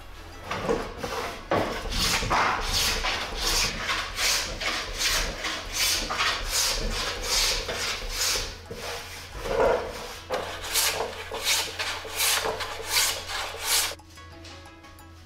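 Japanese hand plane shaving the curved wooden outer surface of a stave-built barrel drum body, in short repeated rasping strokes about two a second, which stop near the end. Faint background music underneath.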